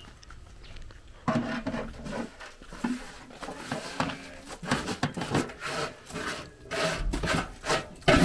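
A hand scraping and sweeping dried acorn inner skins across a metal basin and pouring them into a metal tin: dry rustling and scraping on metal in irregular strokes, starting about a second in.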